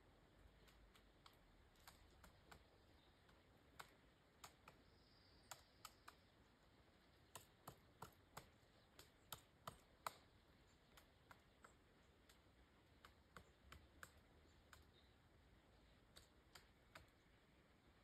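Pileated woodpecker pecking and chiselling into dead wood: faint, irregular single knocks, up to two or three a second at their busiest around the middle, with the sharpest strike about ten seconds in, then sparser again.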